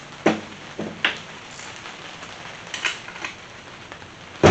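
A rubber mallet knocking against the aluminium case of an NP231 transfer case, three sharp knocks in the first second or so. Lighter metal clicks from a hand tool on the case follow, then one loud knock near the end.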